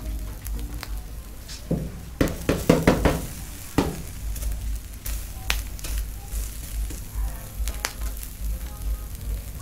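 Shrimp sizzling on a hot stainless-steel tabletop used as a griddle, with sharp knocks and scrapes of a utensil on the metal, clustered about two seconds in and a few single clicks later.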